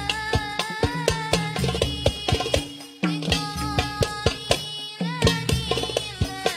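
Instrumental music: a melody line over a quick beat of hand drums, with a brief break about three seconds in.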